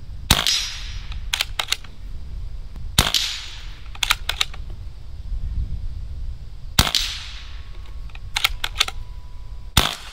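Four shots from a Beeman Chief II .22 PCP air rifle, about three seconds apart, each a sharp crack with a short tail. After the first three, about a second later, come two or three quick clicks of the bolt being cycled for the next pellet.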